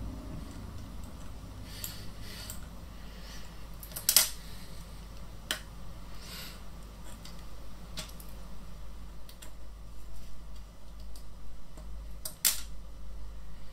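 Small screwdriver driving tiny screws that fasten a circuit board back onto a camera flash head: scattered light clicks and ticks of metal on plastic, the sharpest about four seconds in and again near the end.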